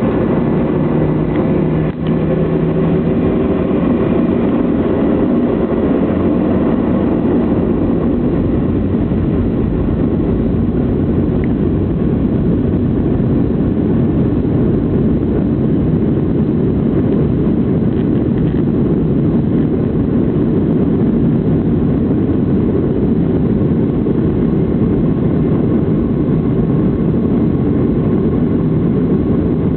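Boeing 757-200 cabin noise from a window seat: steady, loud jet-engine and airflow noise, heaviest in the low end.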